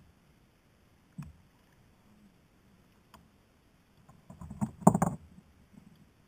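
A quick cluster of knocks and slaps about four to five seconds in as a freshly caught wrasse is swung aboard against the kayak. Before it there is a single sharp click about a second in.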